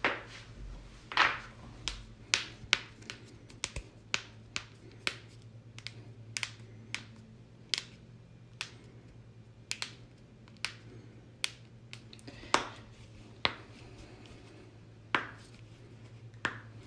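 A long run of sharp, separate cracks and pops at uneven intervals, one or two a second, from joints being cracked.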